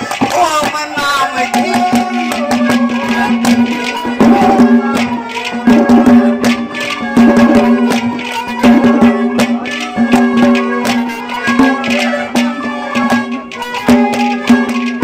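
Instrumental interlude of live Haryanvi ragni music: hand drums playing fast strokes over a steady held note from a melodic instrument.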